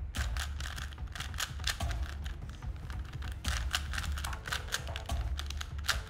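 Plastic 3x3 Rubik's Cube being turned by hand, its layers clicking and clacking quickly, several clicks a second in an irregular rhythm.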